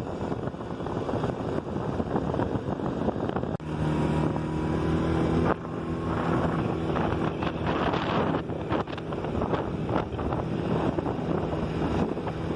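Quad bike engine running steadily while riding a dirt trail, with wind buffeting the microphone. The engine note changes abruptly twice, about a third of the way through and again about halfway.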